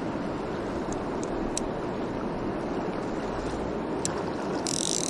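River water rushing steadily over a riffle, with a couple of faint sharp clicks and a brief high-pitched hiss starting near the end.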